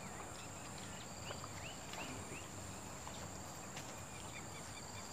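Riverside ambience: insects droning steadily at a high pitch, with short high chirps scattered through and a low background rumble.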